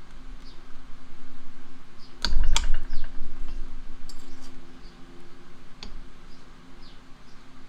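A quick cluster of sharp metal clinks with a heavy knock a little over two seconds in, then a single click near six seconds, as steel parts are handled while rigging a heavy cast bench vise to be weighed.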